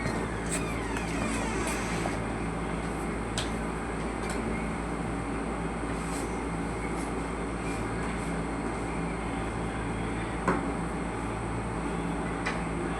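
Vehicle running: a steady drone of engine and road noise, with a few faint clicks and one sharper knock about ten seconds in.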